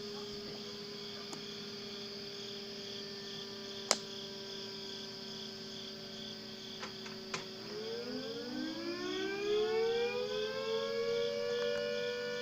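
Klaxon CS8 siren: a steady low hum with a few sharp clicks, then about seven and a half seconds in the siren winds up, two tones rising together over a few seconds and levelling off into a steady two-note sound.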